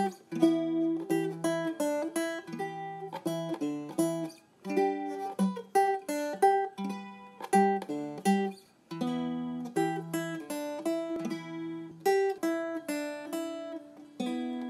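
Music: a plucked string instrument playing a lilting melody of struck, quickly decaying notes, landing on a final note that rings on near the end.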